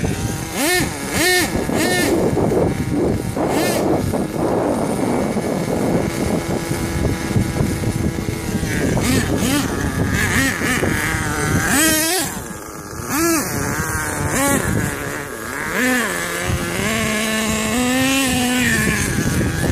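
HPI Savage XL radio-controlled monster truck's engine revving up and down over and over as it is driven over rocky sand, with a steadier held note near the end.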